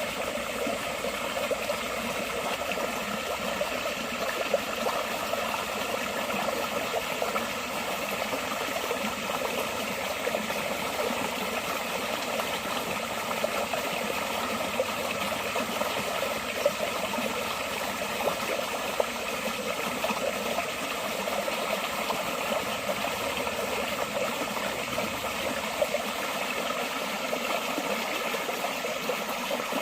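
Clear water flowing steadily, an even rushing trickle with now and then a slightly louder splash.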